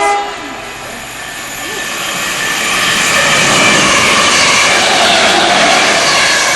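Express train passing through the station at speed: a rush of wheel and air noise that builds over the first few seconds and stays loud, with a faint whine over it.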